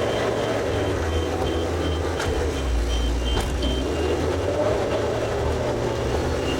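John Deere 410 backhoe running under load, its engine and hydraulics rising and falling in pitch as the machine works. A reversing alarm beeps about three times a second over it.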